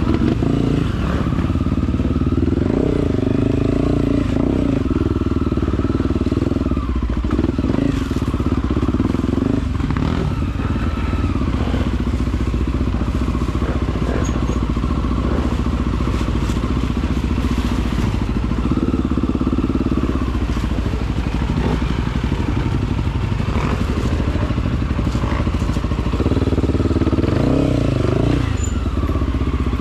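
Off-road dirt bike engine running under load, the revs rising and falling again and again as the throttle is worked, with occasional knocks mixed in.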